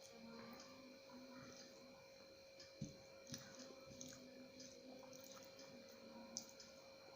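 Near silence with faint eating sounds: soft chewing and a few small clicks of food and fingers, the clearest a little before the middle, over a faint steady electrical hum.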